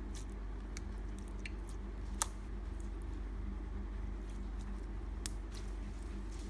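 Clear glitter slime being played with by hand, giving scattered small sticky clicks and pops. The two sharpest come about two seconds in and about five seconds in, over a steady low hum.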